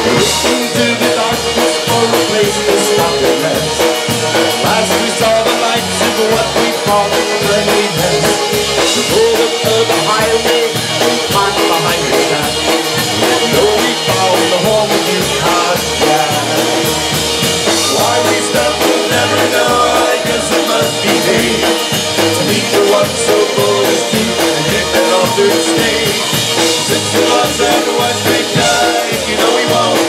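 Live polka band playing an instrumental stretch between verses: button squeezebox, electric guitar and drum kit over a steady, bouncing polka beat.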